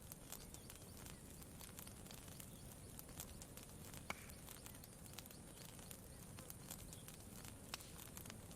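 Campfire crackling faintly, with scattered sharp pops at irregular intervals and one louder pop about four seconds in, over a faint low rumble.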